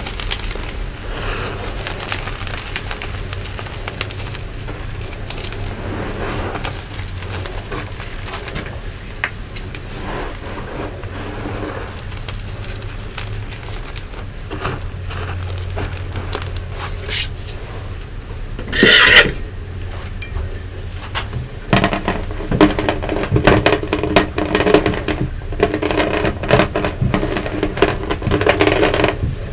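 Hands squeezing and crumbling crunchy yellow Nexo powder: soft, steady crunching and sifting, with one loud crunch about 19 seconds in. From about 22 seconds a metal rolling pin rolls over the lumps, and the crackling crunches get louder and denser.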